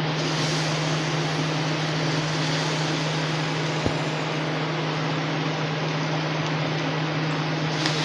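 Steady mechanical hum with an even hiss of rushing air, and a single light tap about four seconds in.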